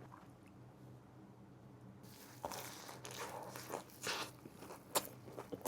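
Close-up chewing of a crispy fried hot chicken slider: wet crunching and mouth clicks, starting about two seconds in after a quiet pause.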